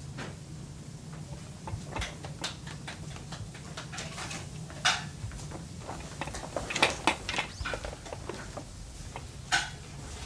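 Scattered sharp clicks and knocks of plastic toys on a baby activity center being handled, loudest about halfway through, in a quick cluster a little later, and once more near the end, over a steady low hum.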